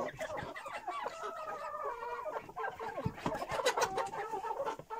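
A flock of chickens, mostly hens, clucking and calling over one another in a coop: many short overlapping calls, with a few sharp clicks among them.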